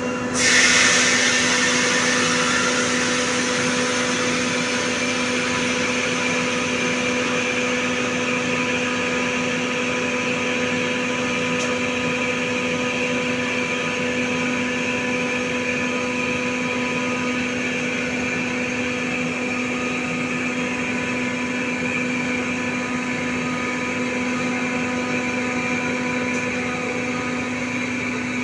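Compressor running with a steady motor hum and whine. About half a second in, a loud burst of hissing starts and fades over about two seconds.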